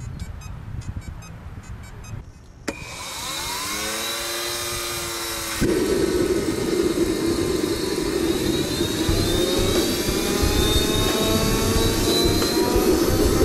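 JetCat PHT-3 turbine in an RC helicopter starting up: after a few faint beeps it spools up with a whine that rises and levels off. About five and a half seconds in it turns suddenly louder into a steady jet rush, its whine still slowly climbing.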